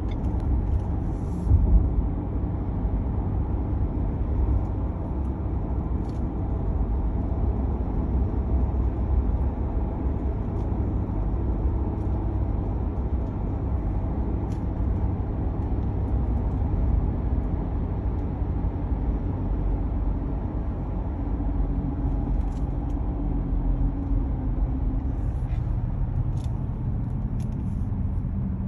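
2019 Ford Ranger Wildtrak 2.0-litre bi-turbo on the move: a steady low rumble from its big tyres and drivetrain. Through it runs the unexplained noise that the owner has been unable to get fixed since the truck was new.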